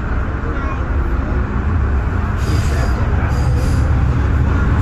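MTR M-train electric multiple unit gathering speed out of a station: a low rumble of wheels on rail with a steady motor hum, growing louder, joined by a rushing hiss about two seconds in.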